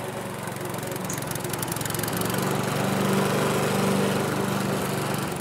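Lawn mower engine running steadily, growing somewhat louder over the first few seconds.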